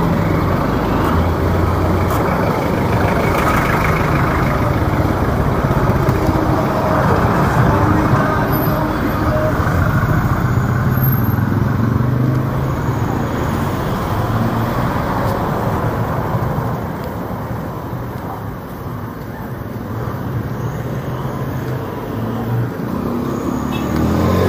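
Street traffic: motor vehicle engines running and passing on the road, a steady hum that eases a little about three-quarters through, then builds again.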